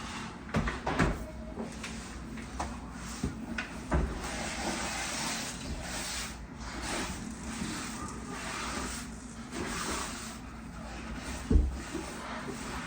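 Hand-wiping along a kitchen floor: a rubbing swish with scattered knocks and bumps, the loudest knock near the end.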